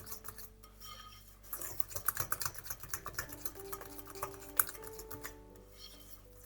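Cutlery clinking and scraping against dishes in a quick run of light clicks, busiest in the middle, over soft background music.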